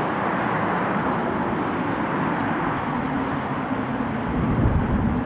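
Jet engines of a Boeing 777-300ER running in reverse thrust as the airliner slows on the runway after touchdown, a steady roar. A deep rumble swells near the end.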